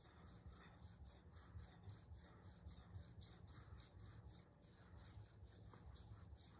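Santoku kitchen knife stroked dry across a 10-micron diamond resin sharpening stone: a faint, even scraping of about four strokes a second. The strokes work the bevel to take out the scratches left by the 25-micron stone.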